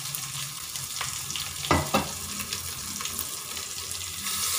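Onion, ginger-garlic paste and mint sizzling in oil in a steel pot, a steady frying hiss with two short metal clinks a little before halfway. The sizzle grows louder near the end.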